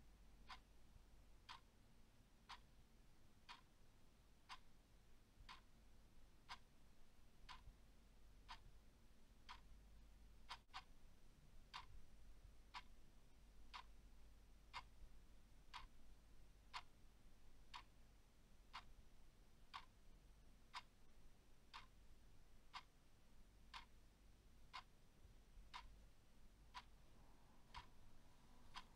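A clock ticking steadily and faintly, one tick a second.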